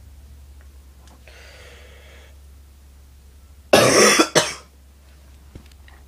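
A person's barking cough: a breath drawn in, then about a second and a half later one loud, sudden cough with a short second burst right behind it.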